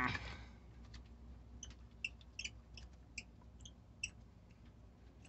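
Handling noise as a glow plug is worked loose by hand from a Westerbeke 12-D diesel engine: one knock at the start, then a scatter of faint, light ticks about two to four seconds in.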